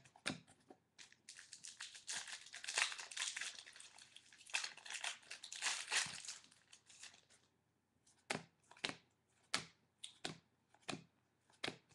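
A trading-card pack's foil wrapper being torn open and crinkled, a dense crackling for several seconds. Then a series of short sharp snaps as the cards are slid and flicked through one by one.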